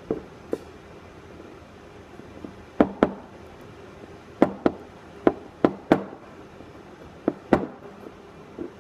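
Sharp metallic clicks and taps, about a dozen at irregular intervals and often in quick pairs, as a small hand tool and parts knock against the metal body of a Probe 1-11/16" I-Wheel wireline conveyance wheel being worked on by hand.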